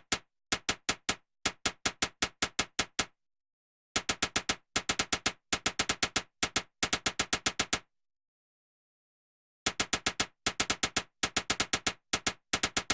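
Typewriter keys struck in quick bursts of several sharp clacks each, with short pauses between bursts. There is a longer pause of about two seconds in the middle.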